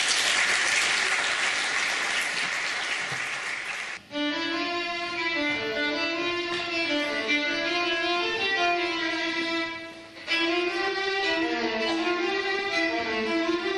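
Audience applauding for about four seconds, then a sudden cut to a small folk band playing: a violin carries the melody over accordion, clarinet, flute, guitar and double bass.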